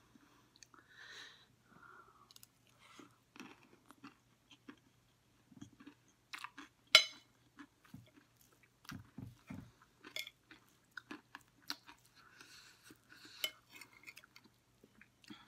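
Close-up chewing of crunchy chatpate (spiced puffed rice), with a metal spoon scraping and clinking on the plate as more is scooped up; one sharp click about seven seconds in.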